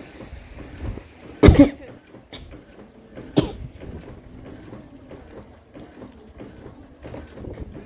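Two sudden loud bumps about two seconds apart, the first the louder, over a faint steady outdoor background.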